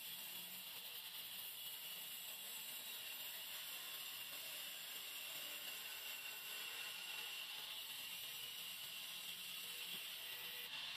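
Large belt-driven band saw ripping lengthwise through an old weathered timber beam: a steady, even hiss of the blade cutting the wood.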